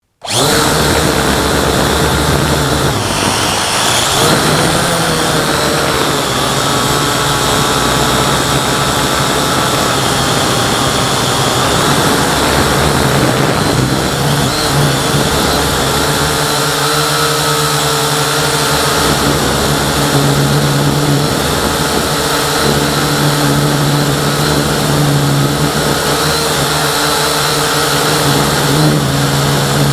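Syma X8C quadcopter's brushed motors and propellers whining steadily, heard from on board the drone. The pitch sweeps up and down about three to four seconds in.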